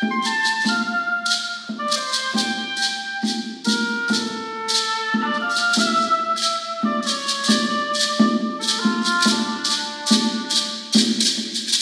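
Oboe playing a melody of held notes stepping up and down, against a maraca shaken in quick, uneven strokes.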